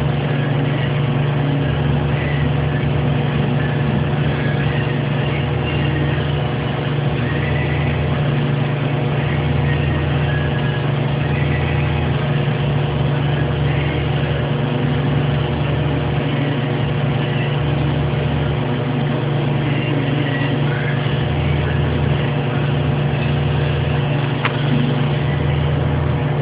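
TIG welding arc and welder buzzing steadily while a pipe flange is welded. A lower hum comes and goes every couple of seconds.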